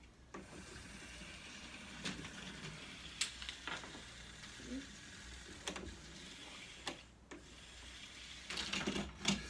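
A small electric toy train running along its track, a steady mechanical whirr with scattered sharp clicks.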